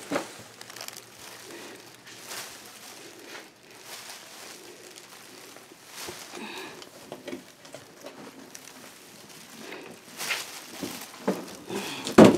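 Rustling and light knocking from cardboard boxes and Christmas decorations being handled and rummaged through. A sharp knock about twelve seconds in is the loudest sound.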